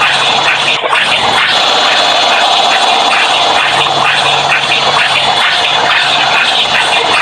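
LG washing machine on its spin cycle with added sound effects layered over it: a loud, dense, steady noise with an even pulse about twice a second.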